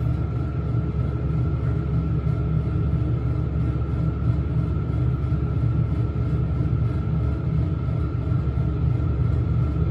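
KONE hydraulic elevator cab travelling down, heard from inside the cab: a steady low rumble with a faint, steady high whine.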